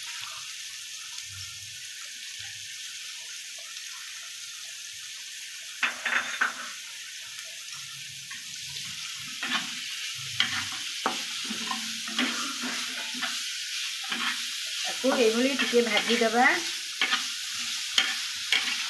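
Shredded cabbage and chopped beans sizzling in hot oil in a kadhai, with a steady hiss. From about six seconds in, a metal spatula scrapes and stirs against the pan in repeated strokes, busiest near the end.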